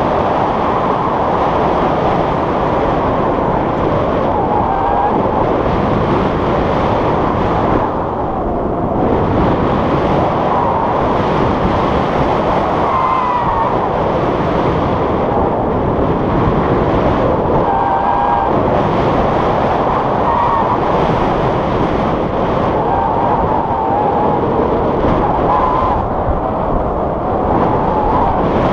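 Steady, loud rushing of wind over the microphone of an action camera on a tandem paraglider in flight.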